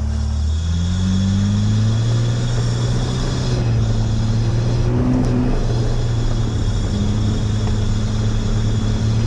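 A small vehicle's engine running and picking up revs about half a second in, then holding steady, with tyres rolling over fresh gravel.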